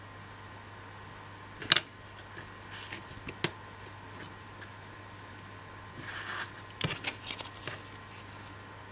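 Small laser-cut MDF pieces being handled and set down on a tabletop: a sharp click a bit under two seconds in, another about three and a half seconds in, then a brief rustle and a quick run of light clicks around seven seconds in.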